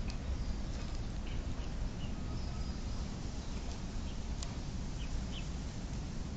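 Open-air ambience: a steady low rumble under a few faint, short bird chirps scattered through.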